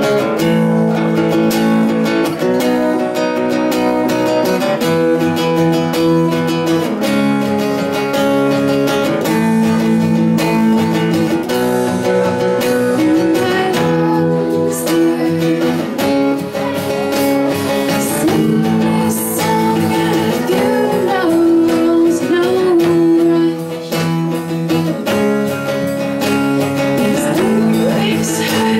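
Two acoustic guitars strumming and picking chords together live, with a female voice joining in singing the melody about halfway in.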